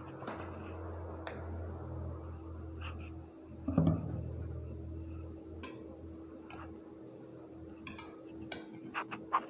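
Metal knife and cake server clinking and scraping against a ceramic plate while a slice of steamed cassava cake is cut and lifted, with a dull knock about four seconds in and a quick run of light clinks near the end. A steady low hum lies underneath.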